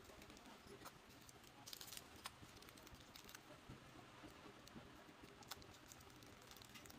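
Faint, scattered small clicks and ticks of plastic model-kit parts being handled, snipped off the sprue with nippers and trimmed with a hobby knife.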